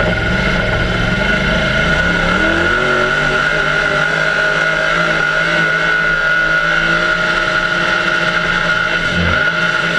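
Mega mud truck's engine running hard at high revs, heard loud and steady from inside the cab, with a steady high whine over it.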